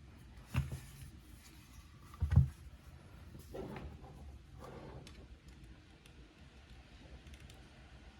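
A few separate keystroke thocks and clacks from a TGR x Singa Unikorn mechanical keyboard with AEboards Raed switches, GMK keycaps and a carbon fiber plate. Two heavier thumps come in the first few seconds, then softer, scattered strokes with no steady typing rhythm.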